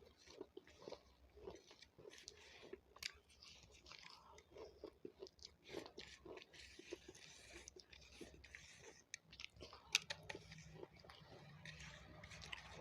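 A person chewing capsicum (bell pepper): a steady run of small crisp crunches and wet chewing. One sharper crunch comes about ten seconds in.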